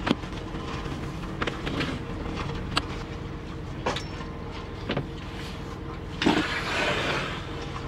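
Sliding companionway hatch cover being pushed by hand over newly fitted plastic slides during a dry fit. It gives several sharp knocks, then a longer scraping slide near the end, over a steady low rumble.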